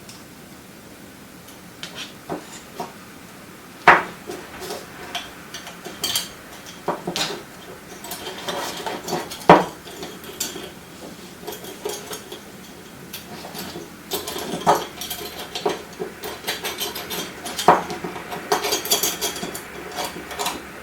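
Zinc squeeze connector and flexible conduit being handled and fitted together: irregular metallic clicks, taps and clinks, with two sharper knocks about four and nine seconds in and a busier run of clinking toward the end.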